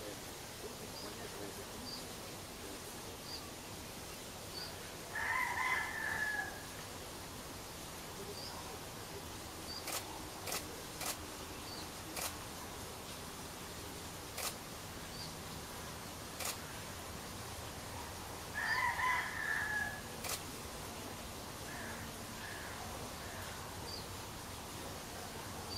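A bird calls twice, each call about a second and a half long, the second coming about thirteen seconds after the first. Faint high chirps recur throughout, and a few sharp clicks fall in between.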